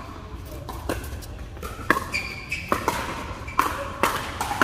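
Pickleball paddles striking a hard plastic ball in a rally: about six sharp pops, roughly one a second, with pops from neighbouring courts in a large hall. A short high squeak sounds near the middle.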